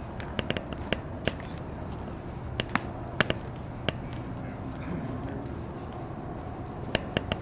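Outdoor field ambience with scattered sharp clicks and taps, a few bunched together near the end.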